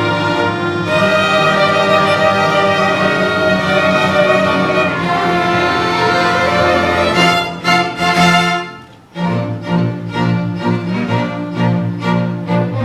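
String ensemble music: bowed strings hold long, sustained chords, then about nine seconds in the sound drops out briefly and the strings resume with a steady, pulsing rhythm.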